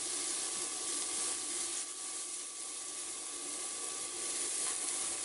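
Diced vegetables and onions frying in a stainless steel skillet, a steady sizzling hiss as they are stirred with a silicone spatula.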